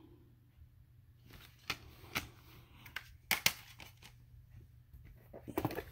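Plastic CD jewel cases being handled, giving a handful of sharp clicks and clacks, two close together about three and a half seconds in and a small flurry near the end.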